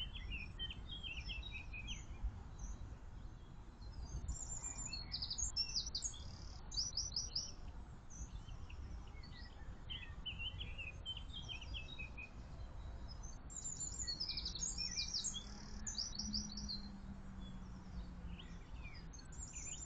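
Several songbirds singing and chirping, with repeated runs of quick high notes in two main stretches, over a steady low outdoor rumble.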